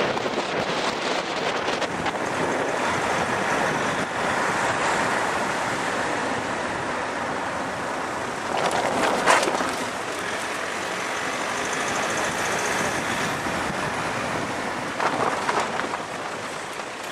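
Road and wind noise of a moving car: a steady rush of tyres and air, swelling louder briefly about halfway through and again near the end.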